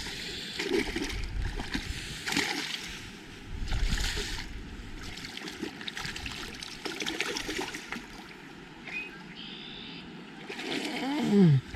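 Water splashing and sloshing against a small boat, with several louder rushes of splashing in the first few seconds.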